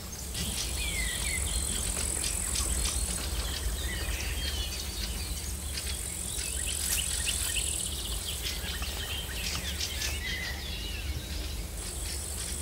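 Summer meadow ambience: insects trilling in high-pitched stretches of two to three seconds, three times, with a few short bird chirps and a steady low rumble underneath.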